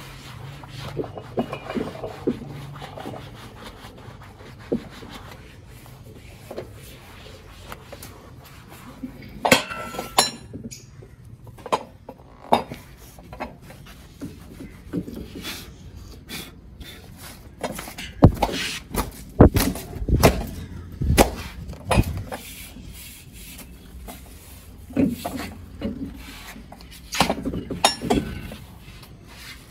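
A cloth rubbing and wiping the padded seat of a weight bench, with scattered knocks and thumps from the bench being handled. The loudest knocks come in a cluster about two-thirds of the way through.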